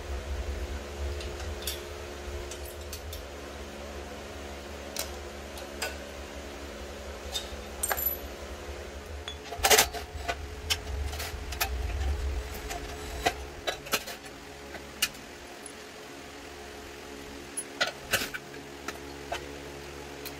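Scattered metallic clicks, clinks and knocks of tools and parts being handled during a mini bike teardown, the loudest knock about halfway through, over a steady background hum.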